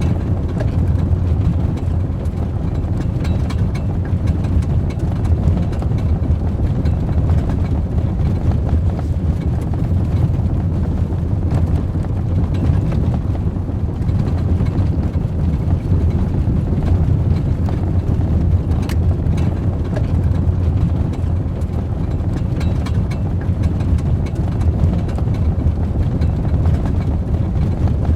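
Ford Raptor pickup truck's engine running at a steady low rumble, holding an even note without revving.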